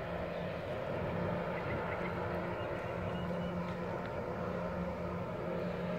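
Distant diesel locomotive engine of a freight train running at a steady drone with a low steady hum.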